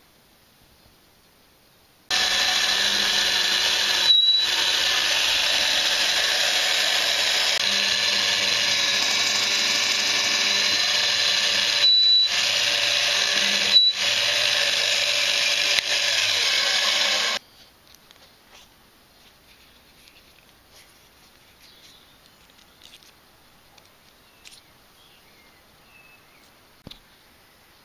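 Drill press running, its twist bit boring crosswise through a steel hex bolt clamped in a machine vise: a loud steady whine for about fifteen seconds, cut off briefly three times, which then stops. Only faint clicks of the bolt being handled follow.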